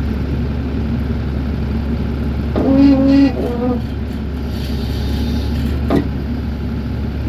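Mini excavator's diesel engine running steadily at work. A short pitched whine is heard about three seconds in, and a single sharp knock about six seconds in.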